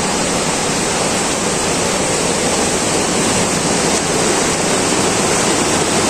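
Loud, steady rush of fast-flowing water from the stream fed by Bambarakanda waterfall.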